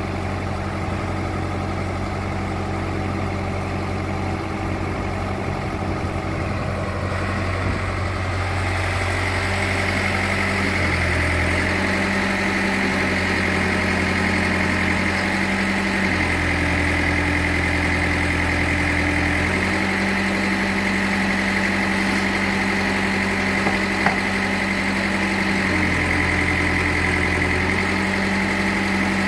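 Engine running at idle, its low note stepping between two steady pitches several times, with a steady high whine joining about eight seconds in.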